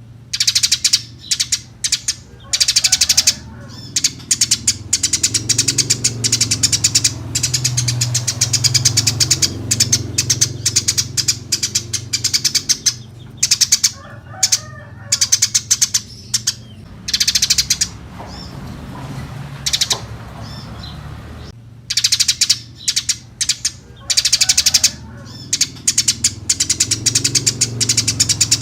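Eurasian tree sparrow chirping busily: fast runs of sharp, high chirps, broken by short pauses of a second or so, over a steady low hum.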